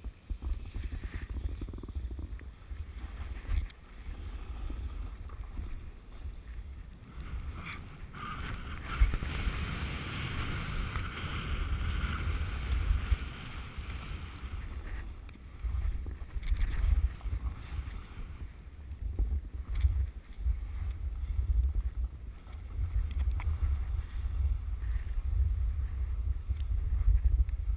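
Wind buffeting a GoPro's microphone during a run down a ski slope: a constant low rumble, with the hiss of snow sliding under the rider, which grows louder for several seconds about a third of the way in.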